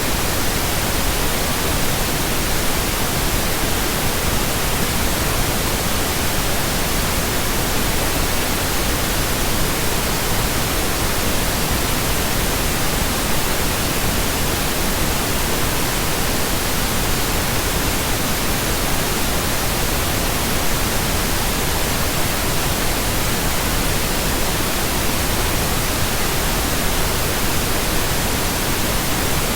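Steady synthetic pink noise, an even hiss across the whole range that does not change.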